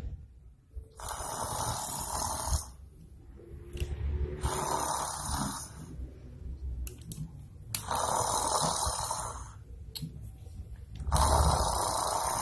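A person snoring in their sleep: four long snores, about three seconds apart.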